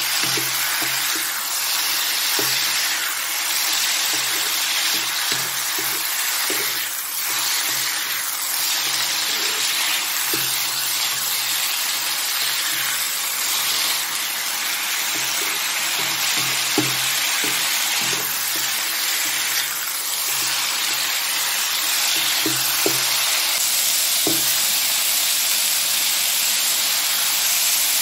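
Broccoli and pork belly stir-fry sizzling steadily in a hot non-stick wok, with a spatula tossing and scraping through the food in repeated strokes.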